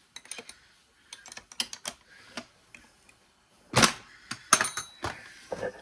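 An irregular series of sharp clicks and knocks from tools and metal parts being handled. The loudest knock comes about four seconds in, followed by a quick cluster of clicks.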